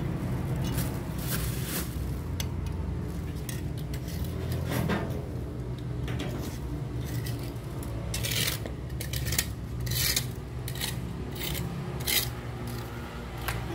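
Metal litter tongs scraping and rasping against a concrete drainage gutter as leaves and debris are picked out, in short irregular strokes that come thicker near the end, over a steady low hum.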